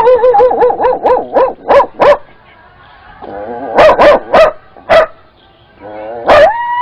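A boy imitating a dog with his voice: a quick run of wavering yelps and barks, a short pause, more barks, then a long held whine starting near the end that he means as the dog's yawn.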